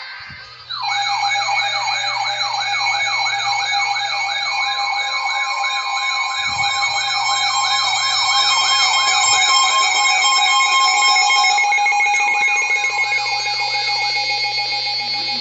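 Emergency alert tones announcing a tornado warning, starting about a second in: a siren-like tone warbling up and down about three times a second over several steady alert tones. The warble fades out near the end while the steady tones continue.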